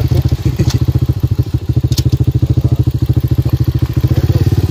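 Small motorcycle engine running at a steady pace while riding, a fast even exhaust pulse, with a couple of short clicks about one and two seconds in.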